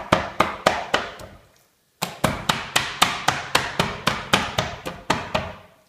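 Raw whole chicken on a plastic cutting board being pounded with a handheld kitchen tool to tenderize it. Quick sharp strikes come about five a second, with a brief pause about a second and a half in.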